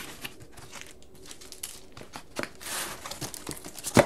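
A hand rummaging through comic books in a cardboard storage box: irregular rustling and handling noise with scattered small clicks, and one sharp knock near the end.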